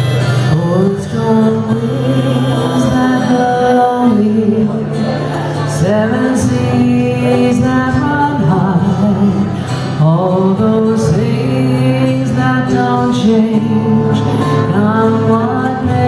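A woman singing a slow folk ballad over acoustic guitar accompaniment.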